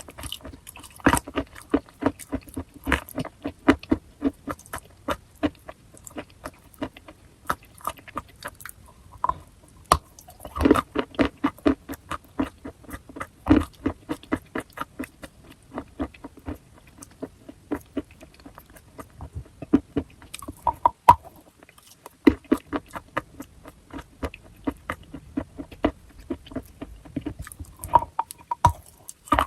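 A person biting and chewing chalk close to the microphone: quick, crisp crunches in a fast, uneven run, pausing briefly twice near the end.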